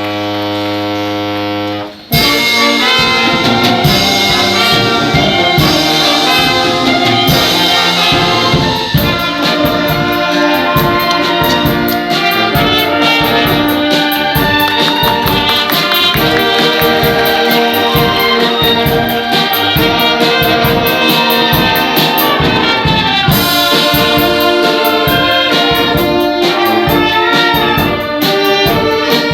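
Music: a held chord for about two seconds, then a brass-led band piece with a steady beat.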